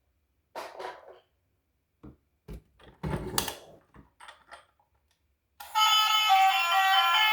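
Light clicks and knocks of a plastic toy being handled. About two-thirds of the way through, an electronic tune from a toy vehicle's sound chip starts abruptly and plays on steadily in stepping tones.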